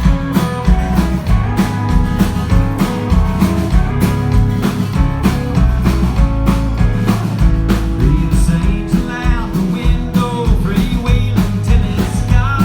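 Live country-rock band playing a song's instrumental intro: a drum kit keeping a steady beat under electric guitar and bass, with sliding guitar notes near the end.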